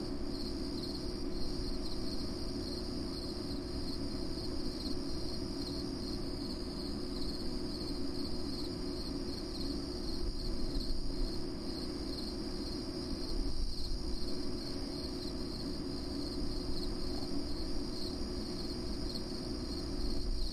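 Crickets chirping in a steady, continuous high-pitched chorus, over a steady low hum.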